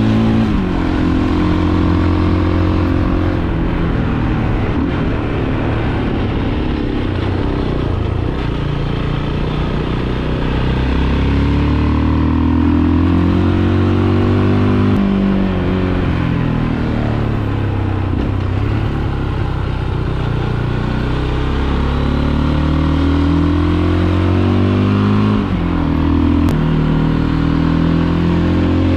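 Fantic Caballero 500's single-cylinder engine running under way. Its pitch climbs as it accelerates and drops back several times through the gears and bends.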